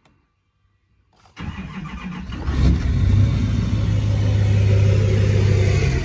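Duramax diesel engine being cranked over by its starter, starting about a second and a half in, without firing. The owner puts the no-start down to a spring and check ball left in the fuel filter head after the lift-pump install.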